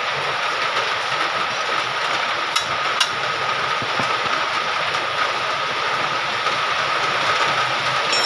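Steady, loud rushing background noise with a faint high whine throughout, and two sharp metallic clicks less than half a second apart about two and a half seconds in, from a wrench working on the steering tie rod end.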